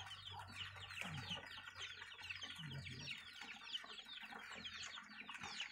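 Chickens clucking, with many short high chirps in quick succession. Water sprays from a leaking pipe and splashes into a puddle.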